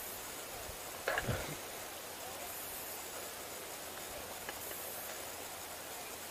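Steady hiss and rustle, with a brief pair of knocks and a rustle about a second in.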